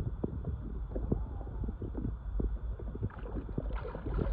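Water sloshing and lapping against a boat's side as a muskie is held by the tail in the water to be revived before release. Near the end there is a louder splash as the fish kicks its tail and breaks free.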